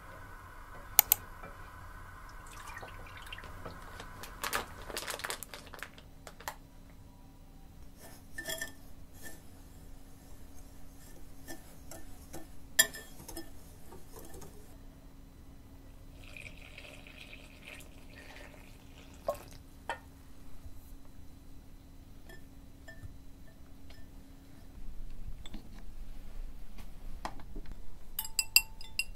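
A whisk working in bowls: scattered clinks and scrapes of a wire whisk against a glass mixing bowl of flour, then, from a few seconds before the end, quicker whisking of an egg in a ceramic bowl, the wires tapping the bowl's side.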